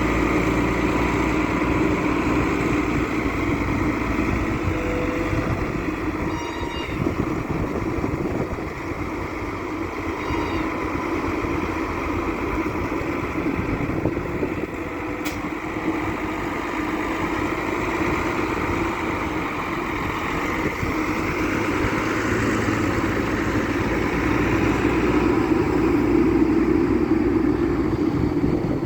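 Develon wheel loader's diesel engine running steadily as it works, getting louder toward the end as it revs up under load.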